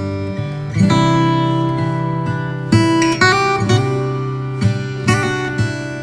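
Background music: acoustic guitar strumming chords, with a new chord struck about every second.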